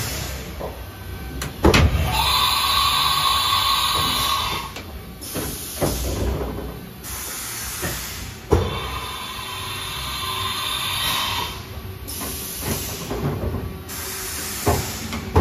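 Haas VF-2SS vertical machining center working through a tool change: several sharp mechanical clunks from the side-mount tool changer arm and spindle, with two stretches of steady whirring and hiss as the machine moves.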